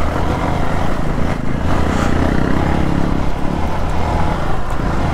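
Hero Xpulse 200's single-cylinder engine running steadily as the motorcycle is ridden off-road, under a constant rush of wind and ground noise on the rider's microphone.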